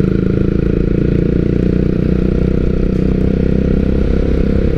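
Honda CBR150R's single-cylinder engine running steadily as the motorcycle cruises, with wind and road noise.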